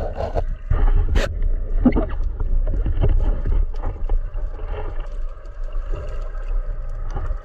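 Sea water sloshing and splashing around a camera held at the surface, over a steady low rumble, with many scattered small clicks and knocks.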